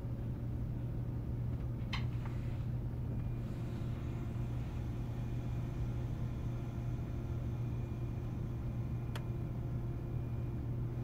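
Siemens Velaro E320 (Eurostar Class 374) IGBT traction inverter under 1,500 V DC, the train pulling away and starting to accelerate. A steady low hum carries several steady inverter tones, and a higher tone comes in about three seconds in. Two short clicks come about two and nine seconds in.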